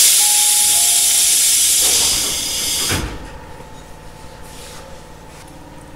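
Tobu 850-series electric train's pneumatic equipment letting out a loud, sudden hiss of compressed air for about three seconds, ending with a thud.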